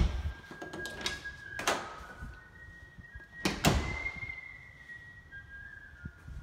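A few sharp thuds against a door, the loudest right at the start, then about 1.7 s and twice more around 3.5 s in. A thin high tone, shifting between a few pitches, runs under them from about a second in.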